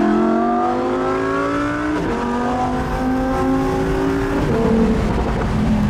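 2018 Lamborghini Huracán Performante Spyder's V10 accelerating, its revs climbing through the gears with quick upshifts about two seconds in and again about four and a half seconds in, then running at a steady pitch.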